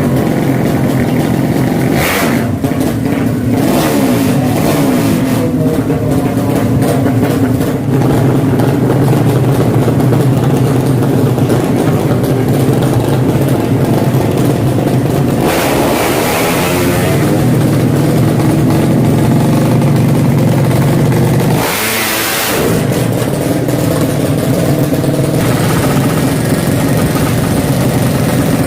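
Drag-racing motorcycle engines running loudly and revving, with three sharp surges about 2, 16 and 22 seconds in.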